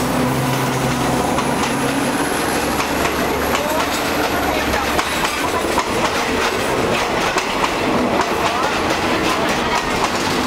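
SRT Alsthom diesel-electric locomotive passing close by with its engine running, the steady engine note fading about halfway through. The passenger coaches then roll past with their wheels clacking over the rail joints.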